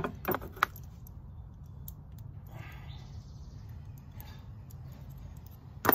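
Small handling sounds of metal fittings being fed by hand into wooden chair rails: a few sharp small clicks in the first second, light rustling in the middle, and a louder click near the end. A low steady rumble runs underneath.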